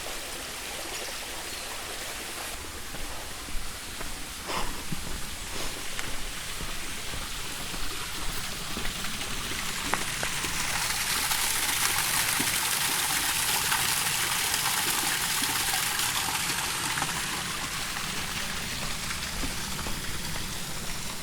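Small mountain stream with little waterfalls, a steady rush of running water that grows louder and brighter about ten seconds in and eases off again near the end.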